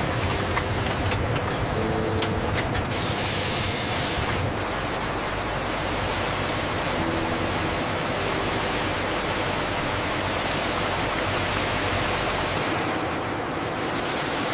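Steady rushing noise of factory machinery, with a brighter hiss from about three to four and a half seconds in.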